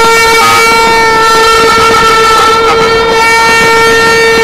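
A plastic party horn of the vuvuzela kind blown close by in one long, steady, loud note, with other horns in the crowd sounding over it now and then.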